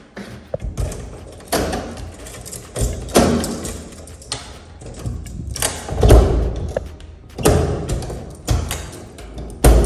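Wind buffeting the microphone on an open balcony: a run of irregular low rumbling gusts, each coming on suddenly and dying away within about half a second.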